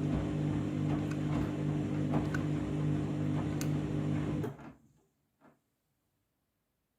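Candy washing machine drum turning slowly through a deep rinse with a steady motor hum and occasional knocks, labouring under a high water level. The sound cuts off sharply about four and a half seconds in.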